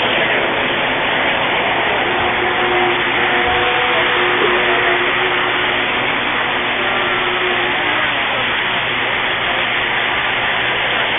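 Three-rail O-gauge model train rolling past close by: a steady running rumble of metal wheels on the track as a string of freight cars and flatcars loaded with model tanks goes by.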